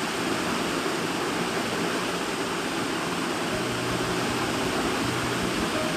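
Steady hissing noise, even throughout, with faint steady low tones joining about halfway through.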